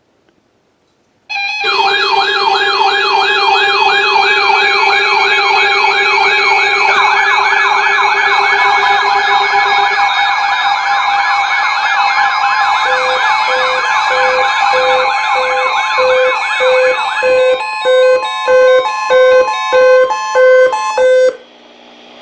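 Several electronic sirens and alarm tones sound together: fast rising-and-falling siren wails over steady tones. About halfway through, a regular beeping starts, and near the end everything turns into a pulsed on-off pattern that cuts off suddenly.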